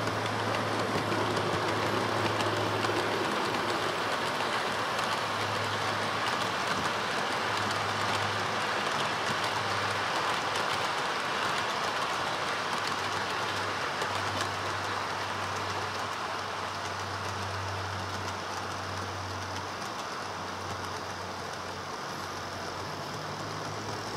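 OO-scale model freight train of bogie wagons running along the layout track: a steady rolling rattle of small wheels on rail with faint clicks, under a low hum that comes and goes. The noise eases slowly over the second half as the train moves away.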